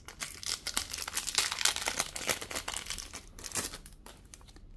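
Foil trading-card pack crinkling and tearing as it is opened by hand: a dense crackle, loudest in the middle, that dies down near the end.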